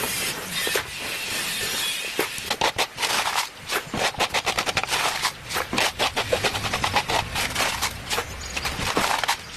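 A rapid, irregular run of sharp knocks, several a second, starting about two seconds in after a steady hiss and going on until near the end.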